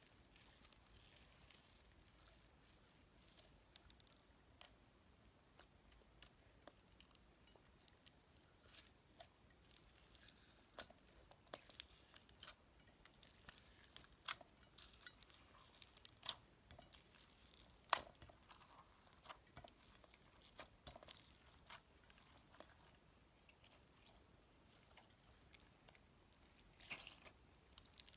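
Store-bought floam, slime packed with tiny foam beads, being squeezed and worked by hand, giving a run of small, irregular crunching crackles and pops.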